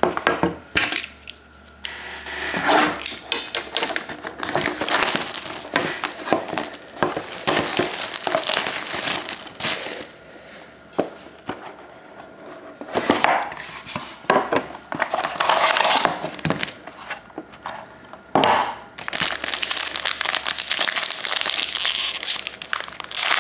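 Plastic wrapping on a sealed trading-card box and the card pack inside crinkling and tearing as it is pulled open by hand, in irregular bursts with a couple of brief lulls.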